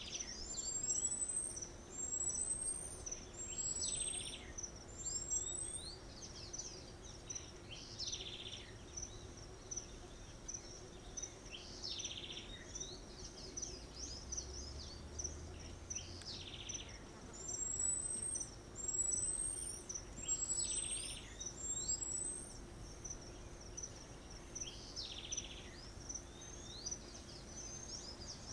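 Natural canopy ambience: a steady high insect buzz. Over it, a falling bird-like call repeats about every four seconds, and two runs of four quick, high, rising chirps come early on and again past the middle.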